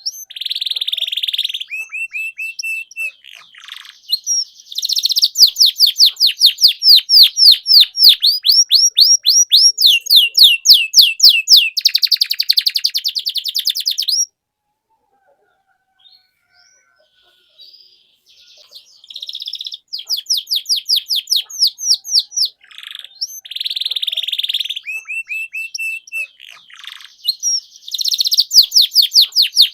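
Domestic canary singing a long song of fast, evenly repeated trills and rolled phrases, high-pitched and loud, broken off by about three seconds of silence halfway through before the song starts again.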